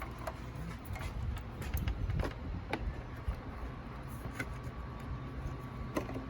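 Scattered light clicks and taps of parts being handled during tail-light installation, over a steady low hum.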